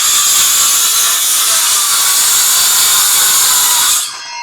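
Electric power saw winding up and cutting wood, running steadily and loudly, then cutting off about four seconds in.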